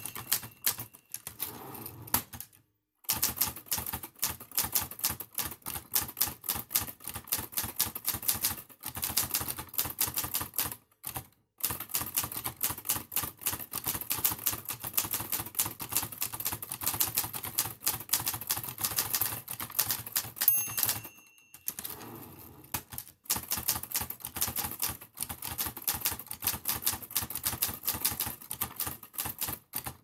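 Typewriter keys clacking in quick runs of strokes, broken by a few short pauses. About two-thirds of the way through, the end-of-line bell rings once, followed by a brief pause before the typing resumes.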